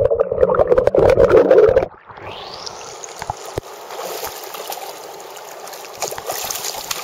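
Muffled underwater water noise of a shallow creek, heard through a submerged camera microphone, loud for about two seconds. Then the microphone comes out of the water, and the creek is heard trickling and gurgling over gravel, quieter and steady.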